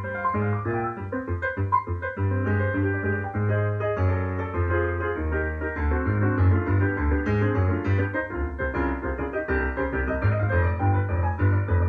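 Piano playing a dense passage of quick notes over deep held bass notes.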